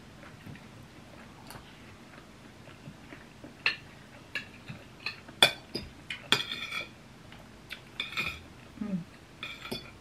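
Metal forks and spoons clinking and scraping against ceramic plates while eating, in scattered taps, some with a short ring, the loudest about five and a half to seven seconds in.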